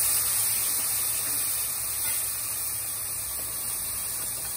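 Hot water hitting curry paste frying in hot oil in a pot, hissing and sizzling as steam billows off. The hiss slowly dies down.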